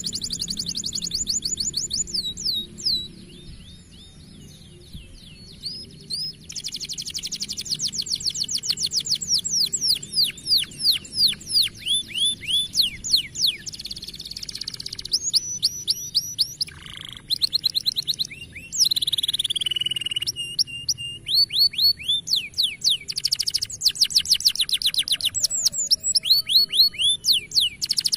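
Domestic canary singing a long song of rapid trills: fast runs of short falling chirps at changing pitches, with a brief lull a few seconds in.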